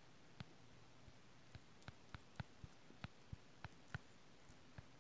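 Faint, sharp fingertip taps and flicks on a phone touchscreen, irregular at about two to three a second, while scrolling quickly through a long list.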